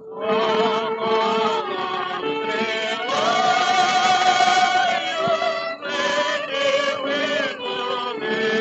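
A 1930 Columbia 78 rpm record playing: a vocal quartet singing with orchestral accompaniment. The voices come in right at the start, and a long note is held about halfway through.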